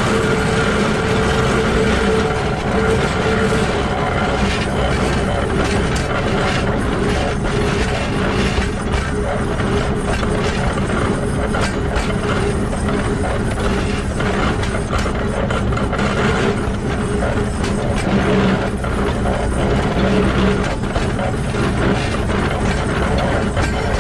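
Running gear of a Shay geared steam locomotive heard up close at the truck: bevel gears and shafting turning and wheels running on the rails, a steady mechanical clatter while the locomotive is under way.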